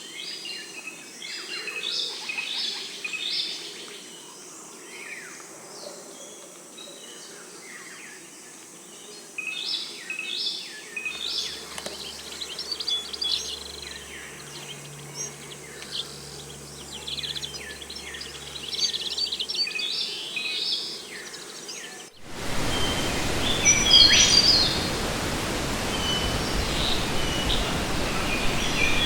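Dense chorus of many small birds chirping and twittering rapidly. About 22 seconds in, it switches abruptly to a louder, steady rushing hiss with occasional single bird calls over it.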